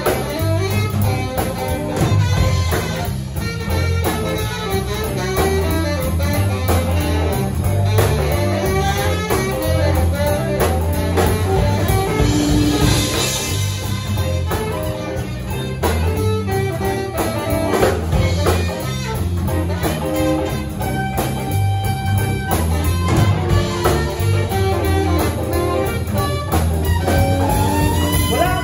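Live blues band playing an instrumental passage with no vocals: electric guitar and drum kit, with saxophone in the mix, over a steady beat.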